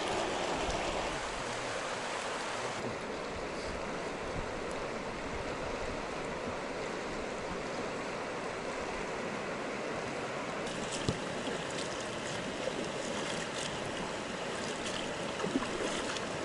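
Fast-flowing river water rushing over shallows: a steady, even rush that turns duller about three seconds in, with a few faint ticks later on.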